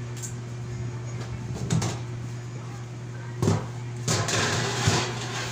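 Handling noise from work on a desktop computer case: a couple of short knocks, then about a second of scraping and rattling with more knocks, over a steady low hum.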